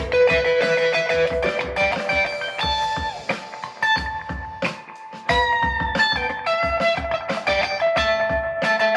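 Strat-style electric guitar played through an overdrive pedal and a delay into a Vox AC15 amp on its Top Boost channel, heard through a new Alnico Blue speaker. A lead line of held, sustained single notes, one slightly bent down about five seconds in.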